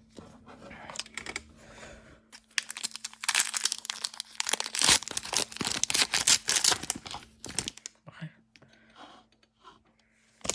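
Upper Deck hockey card pack wrapper being torn open and crinkled, loudest through the middle few seconds, with quieter rustling of the pack and cards before and after.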